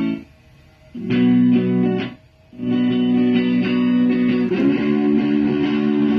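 Electric guitar played through a Boss ME-70 multi-effects pedal. Chords ring and stop short twice in the first three seconds, then a chord sustains, changing a little under five seconds in.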